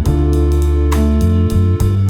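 Background music: an instrumental track with plucked guitar-like notes, a held bass line and a steady beat.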